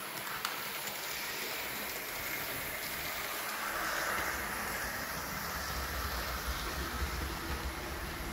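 Hornby LNER A4 model locomotive running around the layout with its coaches: a steady rolling whir of the motor and wheels on the rails. It gets louder a little before halfway, and a low rumble builds through the second half as the train comes closer.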